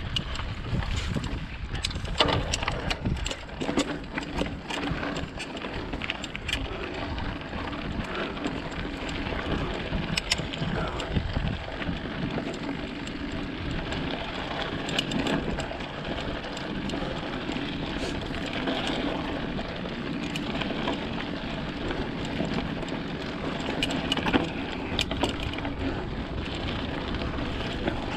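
Mountain bike riding over a dirt and rock trail: tyres rolling on the ground and the bike rattling, with many sharp clicks and knocks from bumps. Wind rumbles on the action camera's microphone, heaviest at the start.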